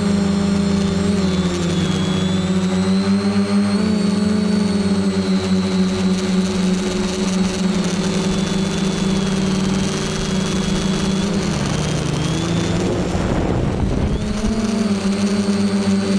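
Quadcopter's electric motors and propellers droning, picked up by the camera on the craft, with a thin high whine over a steady hum whose pitch wavers with the throttle. About twelve seconds in the hum drops and a low wind rush buffets the microphone for a couple of seconds, then the hum climbs back up.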